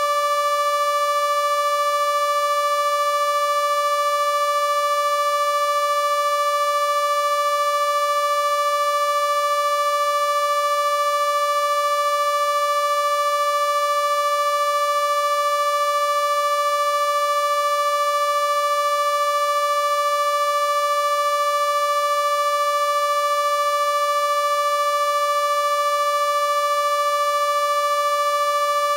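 Electronic sound-healing frequency tone, generated from a voice sample: one steady, unchanging pitch, bright with many overtones.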